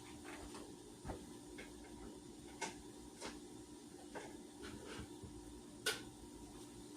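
Faint, irregular light clicks and taps, roughly one a second, over a steady low hum; the sharpest tap comes near the end.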